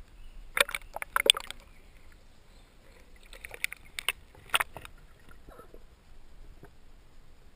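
Scattered sharp clicks and knocks, several in the first second and a half and again about three to five seconds in, heard through an action camera held underwater among the stones of a shallow river.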